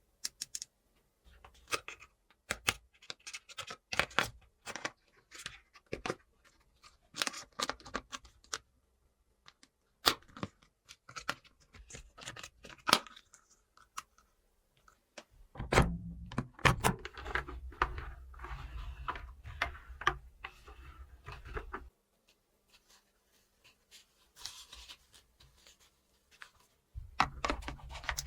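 Plastic toy pieces and packaging being handled: a run of separate sharp clicks and taps. A denser stretch of rubbing and crinkling with a low rumble comes about halfway through and again near the end.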